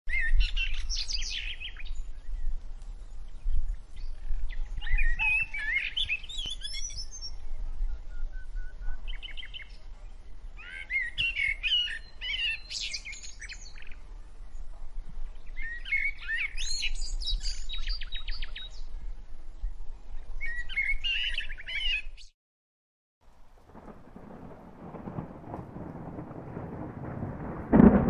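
Small birds singing and chirping in short repeated phrases. About 22 seconds in the birdsong cuts off, and after a moment's silence steady rain begins, with a loud thunderclap near the end.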